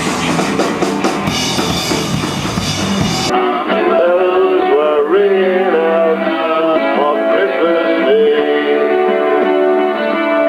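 Background music: a rock track with guitar and drums that cuts off abruptly about three seconds in. It gives way to a thinner-sounding passage with a wavering melody line and no deep bass.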